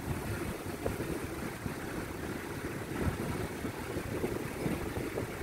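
Vehicle driving slowly over a rough sandy dirt trail: the engine runs low and steady, with irregular bumps and knocks as the wheels go over uneven ground, the strongest about three seconds in.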